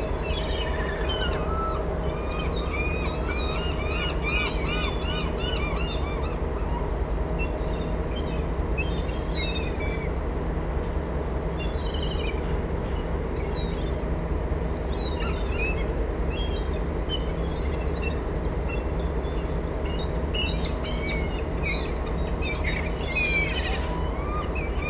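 Seagulls calling over and over in runs of short, rising-and-falling squawks, several birds overlapping, as they crowd in for thrown food. A steady low mechanical hum runs underneath.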